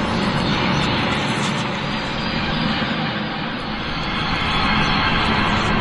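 Synthesized sci-fi horror ambience: a steady, dense rushing drone with a low hum underneath, swelling slightly near the end.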